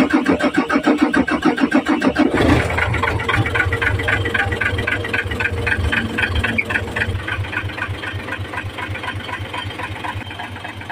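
Mitsubishi Fuso Super Great truck's 6M70 diesel engine being started after its injectors were refitted: the starter cranks for about two seconds, the engine catches and runs, then gradually settles toward idle.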